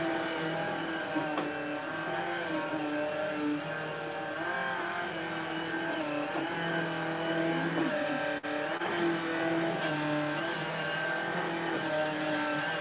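Cordless stick vacuum cleaner running, its motor hum shifting up and down in pitch as the head is pushed back and forth over a rug. The sound cuts out for an instant about eight seconds in.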